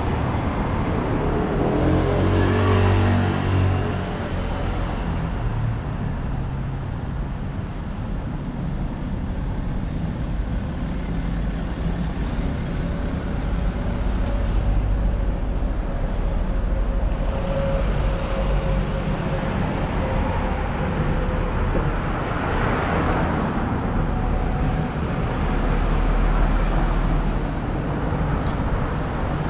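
Street traffic: cars and other vehicles passing over a steady low rumble. One vehicle passes close about two seconds in with a falling engine note, and another swells past about twenty-three seconds in.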